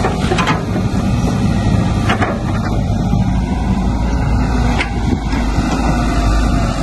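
Caterpillar 312D excavator's diesel engine running with a steady low rumble, with a few faint knocks over it.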